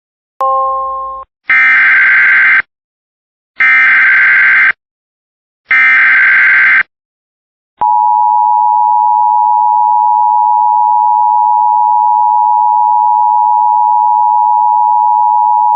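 Emergency Alert System tones: a short three-note chime that fades, then three one-second bursts of the buzzy SAME header data tones, then the steady EAS attention tone held for about eight seconds, signalling that a warning message follows.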